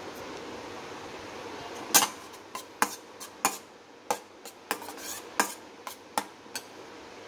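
Steel spoon knocking and scraping against a stainless-steel kadai while stirring daliya roasting in a little ghee. About a dozen sharp, irregular clinks start about two seconds in, the first the loudest, over a steady low hiss.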